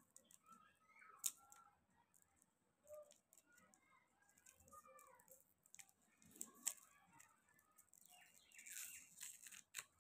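Faint crinkling and crackling of a plastic lollipop wrapper being peeled off by hand, with a few sharp crackles and a denser burst of crinkling near the end as the wrapper comes free.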